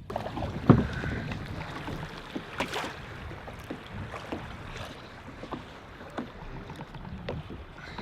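Kayak paddling: paddle blades dipping and splashing in lake water with drips and small knocks, and one sharp knock about a second in.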